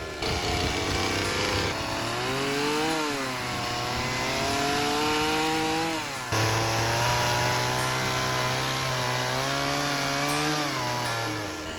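Gas chainsaw carving wood, its engine revving up and down with the cuts. The sound changes abruptly twice, near the start and about halfway through.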